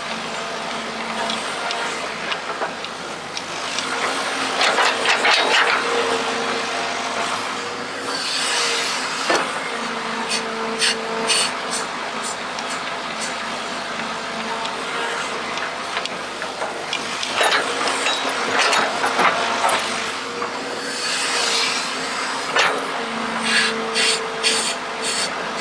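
Remote-control model excavator at work: its motors and pump whine in steady tones that cut in and out as the controls change, with bursts of scraping and rattling as the bucket digs and dumps material, and runs of sharp clicks at times.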